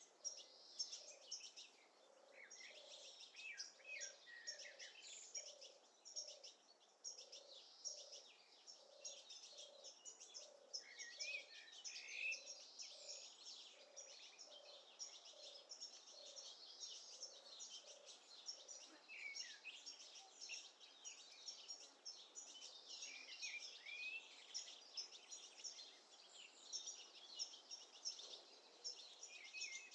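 Faint chorus of many songbirds chirping and singing. Under it, a low note repeats evenly a little more than once a second, then stops about two-thirds of the way through.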